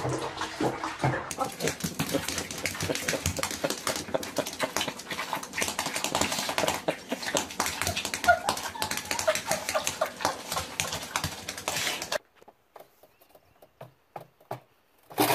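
A small dog whimpering and yipping in short, high cries over a rapid patter of clicks from its claws scrabbling on a hard, wet floor. The sound cuts off suddenly near the end, leaving near quiet with a few faint knocks.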